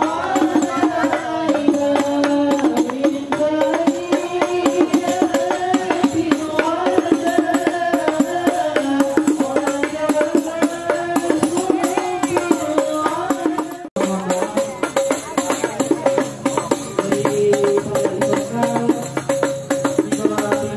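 A man singing a chant into a microphone over a PA, accompanied by rebana frame drums struck in a busy rhythm. The sound breaks off for an instant about 14 seconds in, then carries on.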